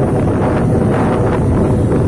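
Loud, steady wind rushing over the microphone while travelling along a road, with the low rumble of the moving vehicle underneath.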